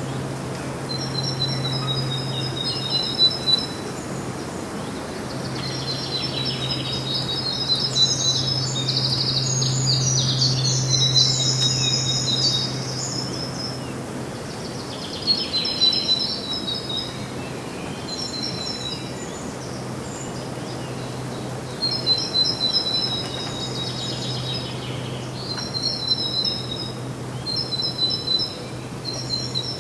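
Songbird singing: short high-pitched phrases of quick, evenly spaced notes, repeated every few seconds, over a steady low hum.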